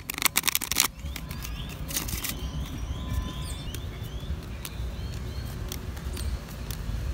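A deck of playing cards riffle-shuffled, a quick run of rapid fluttering clicks lasting under a second, then a second shorter riffle. After that come scattered soft clicks of cards being dealt onto a concrete bench, over a low steady background rumble.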